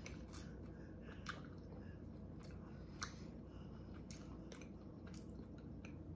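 Faint close-up chewing of soft crumble-topped bread, with small wet mouth clicks scattered through it and two sharper clicks, a little after one second and at about three seconds.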